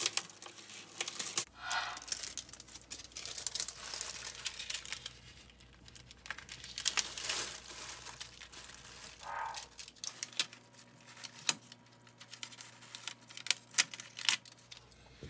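Thin plastic Daiso mosaic-tile wall sheet crinkling and rustling as hands rub it flat with a cloth and work its edges onto the wall, with scattered sharp crackles.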